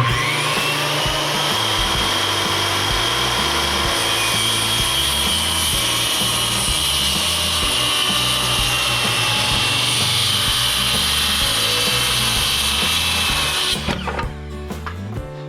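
A power tool starts up and runs steadily for about fourteen seconds, its whine settling to a steady pitch after spinning up, then stops near the end. Background music with a bass line plays underneath.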